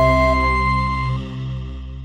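Channel intro jingle ending on a held chord that fades away; the higher notes drop out about a second in and the low notes die away toward the end.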